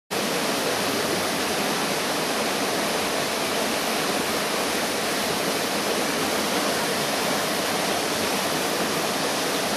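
Steady rushing of river water pouring over rocks in a forest stream's cascades and pools.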